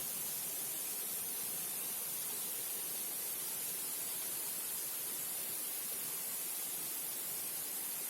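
Steady rush of a waterfall, an even hiss-like roar of falling water with no change throughout.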